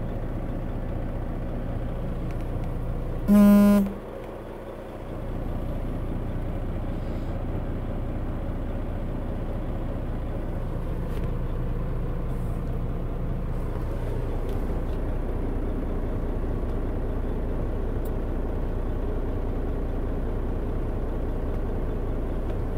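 Steady low rumble of a semi truck's idling diesel engine heard from inside the cab, with one short, loud vehicle horn blast about three and a half seconds in.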